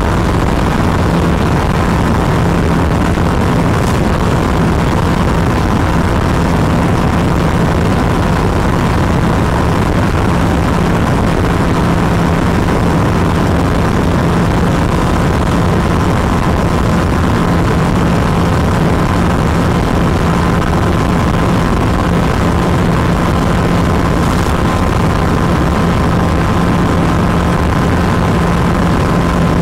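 BMW G310RR motorcycle's single-cylinder engine running at a steady cruising speed, with a constant hum and wind rushing over the microphone.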